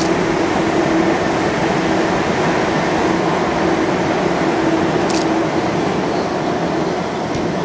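JR East 185 series electric limited-express train running across a viaduct: a steady, even rumble of wheels on rails, easing slightly near the end as the train draws away.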